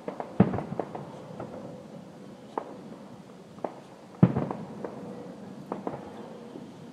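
Fireworks display bursting at a distance: two heavy booms, about half a second in and again about four seconds in, each followed by a quick run of smaller pops, with a few single pops between them.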